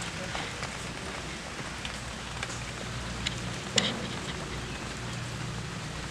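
Sliced arum flower being dropped by hand into a steel bowl of water: light ticks and splashes over a steady hiss, with one sharp click a little under four seconds in.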